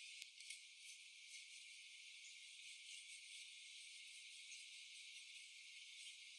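Near silence: a faint steady hiss with a few light clicks.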